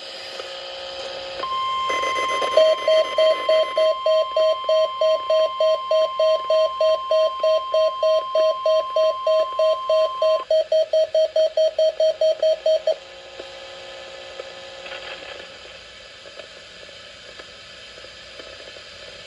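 NOAA Weather Radio warning alarm tone: a steady high tone near 1 kHz lasting about nine seconds, with a weather radio receiver's alert beeping about three times a second over it. The beeping goes on for a couple of seconds after the tone cuts off, then only faint radio hiss remains.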